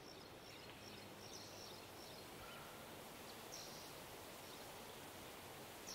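Faint woodland ambience: a steady low hiss with a few short, high bird chirps now and then.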